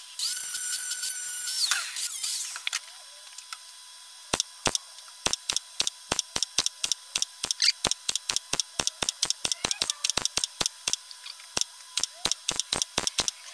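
A high-pitched power-tool whine for the first few seconds, then a MIG welder laying short tack and stitch welds along a steel body panel seam: a run of short, sharp crackling pulses, irregularly spaced at about two to three a second, starting about four seconds in.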